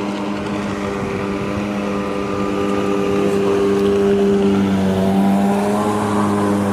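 Boat motor running under way as the boat moves off against the river current. It gets louder and a little higher in pitch partway through as it picks up speed.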